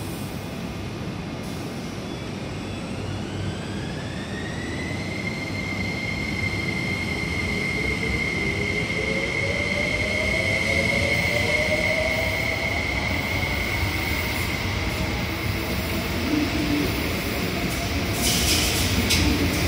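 MTR East Rail Line electric multiple unit pulling out of an underground platform. Its traction motors whine, rising in pitch for a few seconds and then holding steady, and a second, lower whine rises a few seconds later. The running noise grows louder as the train gathers speed, with short high squeals near the end.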